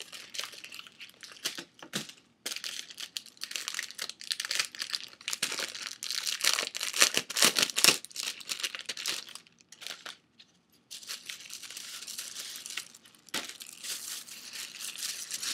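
Packaging being handled and unwrapped from a new clutch purse: a run of crackly rustling that stops briefly about ten seconds in.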